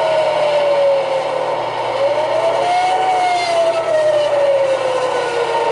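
Model railroad layout running: a whine rises and falls in pitch twice over a steady rumble and hum.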